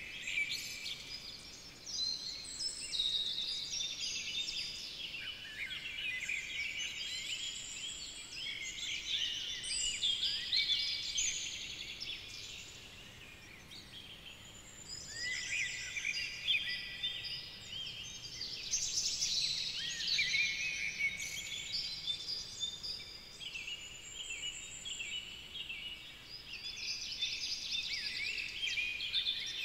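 Several songbirds singing at once, a dense chorus of trills and quick high note series, easing off briefly about halfway through before building again.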